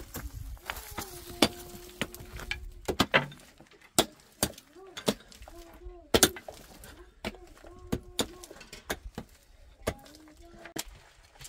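Pickaxes striking hard, stony earth: sharp, irregular blows about one or two a second as two diggers work the bank.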